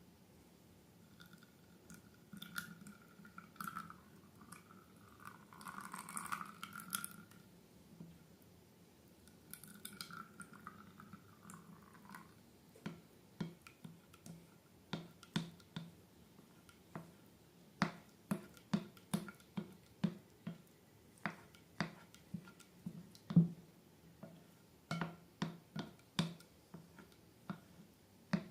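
Slime being handled and squished: a squeaky rubbing for the first dozen seconds, then a run of short wet clicks and pops, about one or two a second.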